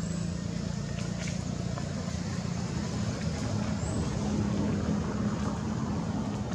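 A motor vehicle's engine running nearby, a low steady drone that swells slightly about four seconds in.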